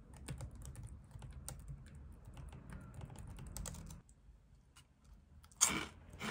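Light typing on a laptop keyboard, a quick run of soft key clicks for about four seconds. A little before the end comes one short, louder rustle as chopsticks pull a cracker from a plastic snack bag.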